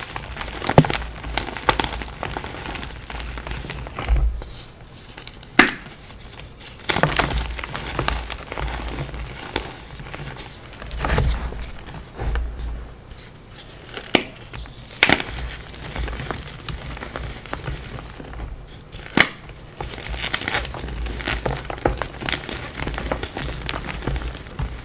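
Blocks of dyed gym chalk crushed and crumbled by hand: crunching and powdery crumbling, broken by irregular sharp snaps as pieces break apart.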